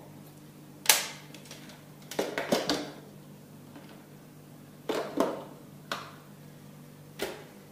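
Sharp plastic clicks and knocks from the Narwal robot vacuum's clear dust collector tank being handled and slotted back into its compartment in the robot. The clicks come singly and in short clusters, a handful of times over several seconds.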